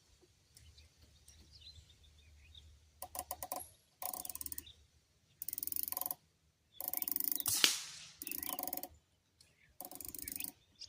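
Rapid clicking of a Sig Sauer Buckmaster 3-9x50 riflescope's turret being turned in about six short bursts, adjusting the point of impact down, with one sharper click near the middle. Faint bird chirps come in between.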